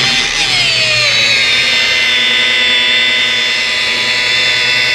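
DeWalt rotary polisher's electric motor whining as it spins a polishing pad against car paint. The pitch sinks over the first second or so as the pad loads onto the panel, then holds steady.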